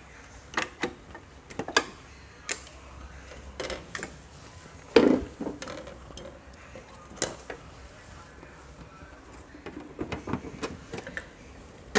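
Plastic parts of a Pureit Classic water purifier clicking and knocking together as the unit is reassembled after a kit change: a dozen or so irregular short clicks, the loudest knock about five seconds in.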